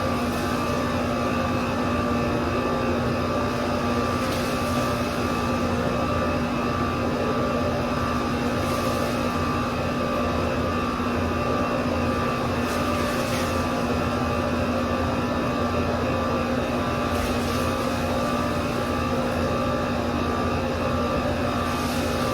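A machine running steadily with a strong even hum. A faint hiss recurs about every four seconds.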